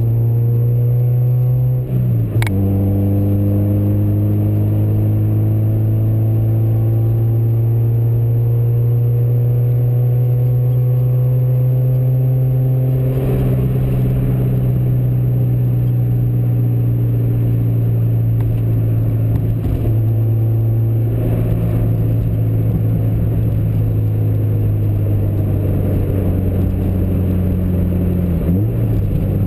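A vehicle's engine running under way, its pitch climbing slowly. A brief drop in pitch with a sharp click comes about two seconds in, and another pitch drop near the end.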